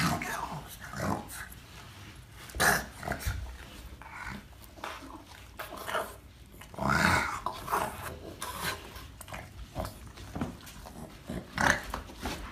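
A dog grumbling and growling in short, irregular bursts as it squirms and rolls on carpeted stairs, with one longer call that rises and falls about seven seconds in.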